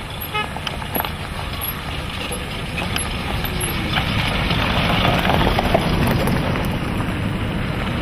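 A Land Rover Series off-roader and then a hatchback car drive past on a dirt road, engines running over tyre noise on gravel. The sound grows louder through the second half as they pass close by.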